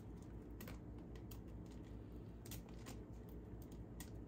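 Faint, irregular light clicks and ticks from hands handling a bag of dried cherries, over a low steady hum.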